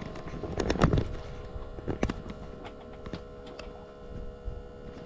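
Scattered clicks and knocks of hands and gear being handled at the gyrocopter cockpit, the loudest about a second in, over a faint steady hum.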